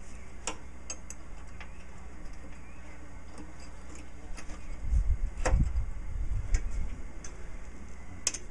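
Scattered small metal clicks and clinks as the mower-deck linkage and pins on an old Sears garden tractor are handled and fitted, with a few dull low bumps a little past halfway.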